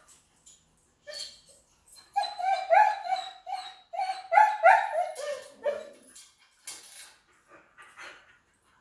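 A dog whining and yipping: a quick run of short, high-pitched cries from about two to six seconds in, with quieter scattered whimpers around them.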